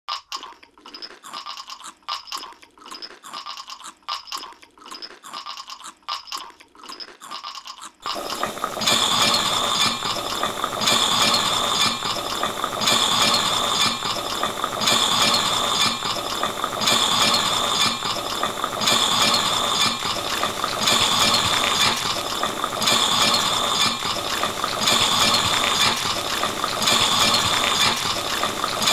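A rhythmic, looped rattling sound. For about eight seconds it is sparse clicking, then it turns suddenly into a louder, dense rattle that repeats in a pattern about every two seconds.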